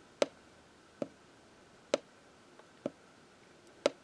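Marker tip clicking against a whiteboard as strokes of Roman numerals are drawn: five short, sharp clicks, roughly one a second.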